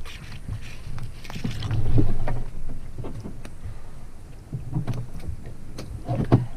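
Irregular knocks and low thumps from a canoe hull, with water moving around it, as the paddler steps out at the shore and handles the bow line. The loudest thumps come about two seconds in and again near the end.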